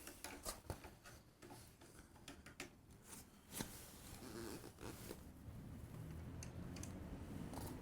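Faint scattered clicks, taps and scrapes of hand tools and parts being handled while an electric unicycle is fitted together, with a low rumble building in the last couple of seconds.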